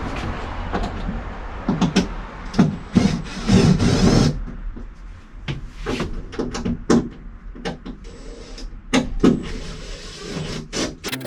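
Irregular knocks and clatter of hand work on wood and panels, over a steady low hum, with a short burst of rushing noise about three and a half seconds in.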